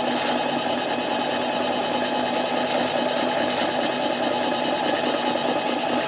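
Harbor Freight 7x10 mini lathe running steadily, its tool cutting a Husqvarna 372 chainsaw cylinder. The cut sounds even, which is taken as a sign that the part is now running true.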